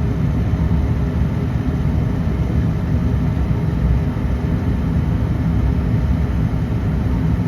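Nordyne gas furnace running with its burners lit: a steady low rumble. The flame holds only while the gas-valve connector is pushed hard into the control board, which the owner takes for a faulty control board.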